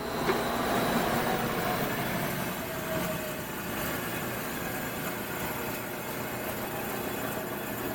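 Hobart 5801 meat and bone band saw just switched off, its motor and blade coasting down with a faint tone that sinks slightly in the first few seconds. Under it runs the steady hum of the rotary three-phase converter powering the saw.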